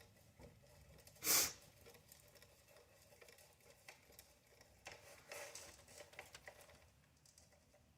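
Faint handling noises of small RC car parts and tools on a bench, with one short, louder rustle about a second in and a scatter of light clicks and rustles in the second half, as a pillow ball is worked with thread-locking adhesive.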